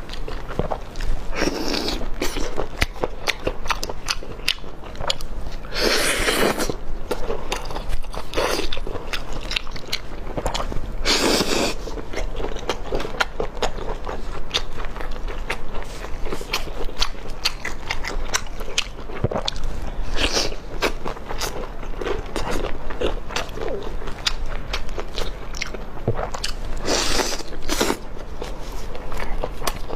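Close-up eating sounds: a person chewing crispy fried food with constant crackly clicks, broken by a few loud crunching bites about a second in, around six seconds, around eleven seconds and near the end.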